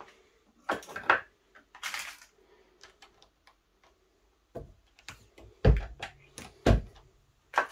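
Brass cartridge cases and bullets clicking as they are handled and set into a reloading press. About two-thirds of the way in come a few heavier knocks as the press handle is worked to seat a bullet in a 6.5 Creedmoor case.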